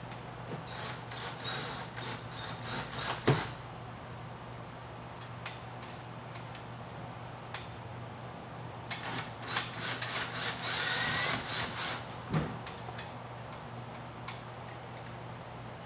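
Cordless drill driving screws through an aluminum header track into the wall, in short runs of the motor with clicks and knocks of the screws and bit. There is a sharp knock about three seconds in, and a longer run later whose whine rises near the end of the drive.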